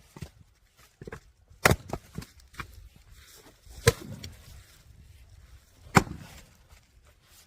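Firewood being split: three sharp, loud strikes about two seconds apart, each followed by a low rumble, with a few lighter knocks in between.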